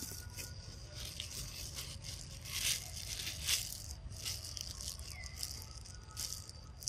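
A young macaque biting and chewing a piece of ripe yellow fruit: irregular crisp crunching and rustling, loudest around the middle, over a faint steady high insect whine.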